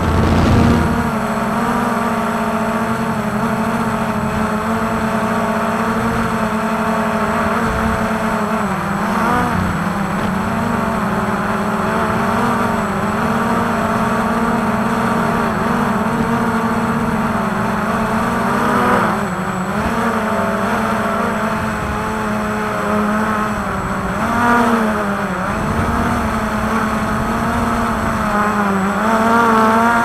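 Quadcopter drone's motors and propellers whining steadily. The pitch dips briefly and recovers three times as the drone manoeuvres.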